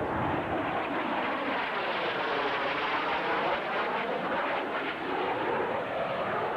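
Airplane flying past overhead: a steady rushing engine noise with a swirling sweep in its tone as it passes.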